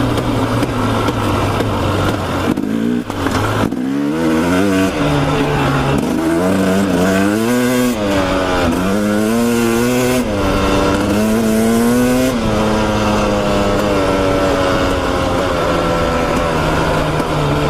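Off-road motorcycle engine being ridden through mud on a trail, its pitch rising and falling over and over with the throttle and gear changes, then settling to a steadier, lower note for the last few seconds.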